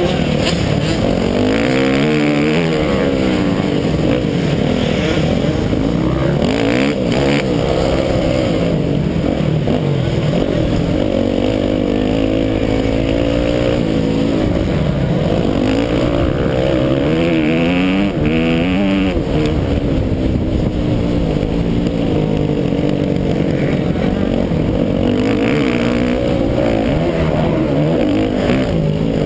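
Motocross dirt bike engine heard from on board, loud and revving up and down over and over as the rider accelerates, shifts and backs off around the track. A few brief knocks cut through, around a quarter of the way in and past the middle.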